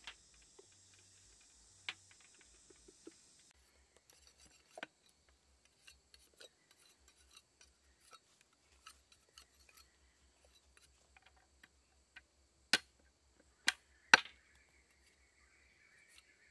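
Cleaver blade whittling a bamboo stick into a skewer: light, irregular scraping ticks, with three sharp, loud clicks in quick succession about three-quarters of the way through. A couple of knocks near the start.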